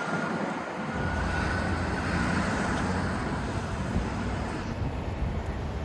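Street traffic noise: a steady hum of road vehicles, with a low rumble that grows about a second in.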